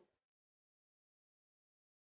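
Silence: the sound track is muted.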